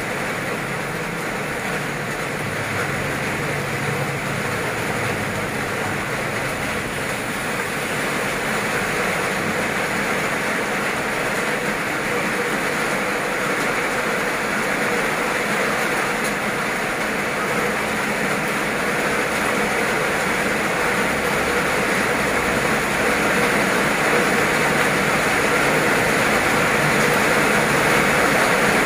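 Heavy rain pouring down onto flooded pavement and puddles, a steady hiss that grows gradually louder over the stretch.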